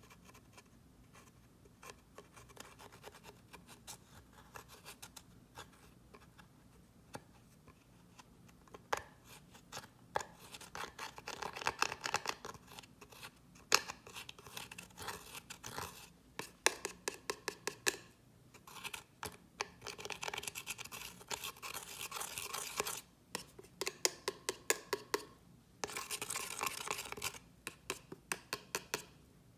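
A pointed tool scraping and digging into a pan of pressed shimmer eyeshadow in a plastic palette, crumbling it out: flurries of rapid dry scratching with sharp clicks, in several bouts.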